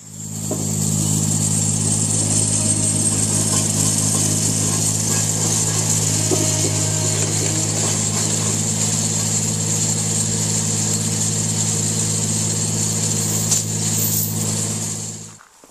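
Work machine's engine running steadily at one constant speed, with a steady high hiss over its low hum. It cuts off suddenly near the end.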